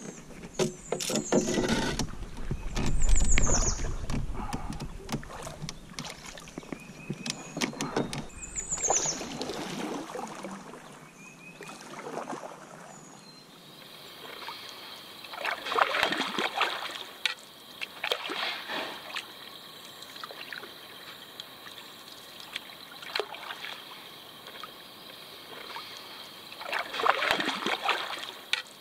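Canoe being readied and launched: knocks and clatter of gear against the Old Town canoe's hull for about the first 13 seconds. Then occasional paddle strokes and water washing against the canoe over a steady high-pitched insect drone.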